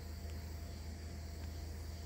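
Steady outdoor background: a faint, even insect chorus of crickets over a low steady rumble, with no distinct event.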